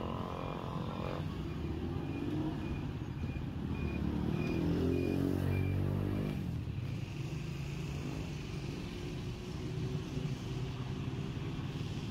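Street traffic: motor vehicle engines running, with one louder engine swelling and passing about halfway through.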